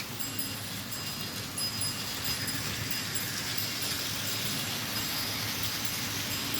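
Small electric motors of toy vehicles running on a plastic slot track: a steady whir with a low hum and thin high whines that come and go.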